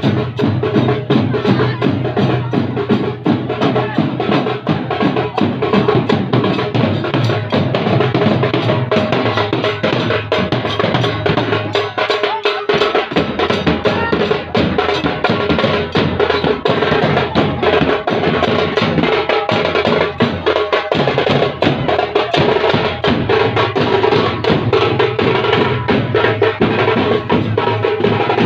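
Large double-headed drums played together in a fast, dense, loud beat, the deepest strokes dropping out briefly about halfway through.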